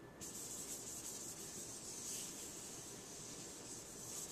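A cloth wiping dust off the aluminium body of a unibody MacBook Pro: a steady, high-pitched rubbing that starts just after the beginning.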